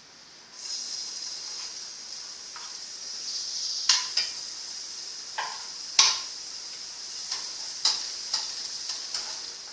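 Food sizzling as it fries in a pan: a steady hiss that starts about half a second in. A cooking utensil clicks and knocks against the pan every second or so, loudest about four and six seconds in.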